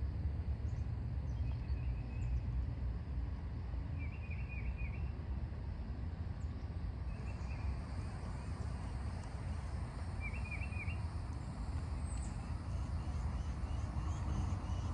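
Outdoor ambience: a steady low rumble, with a songbird calling in quick runs of three or four high chirps about four seconds in and again about ten seconds in.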